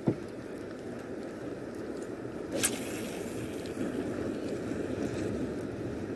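Steady low rumble of a small boat on the open sea, with a short thump at the start and a sharp click about two and a half seconds in.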